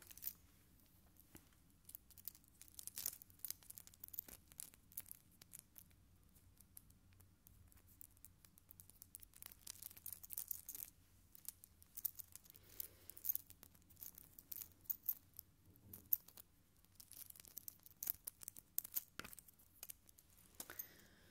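A small gold-coloured trinket handled right against the recorder's microphones: fingernails and fingertips tapping and scratching it in quick, irregular little clicks.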